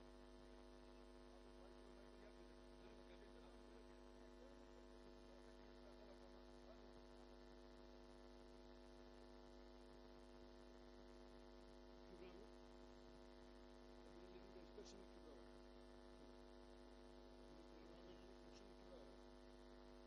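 Near silence: a steady electrical mains hum on the broadcast audio, with a few faint sounds near the middle.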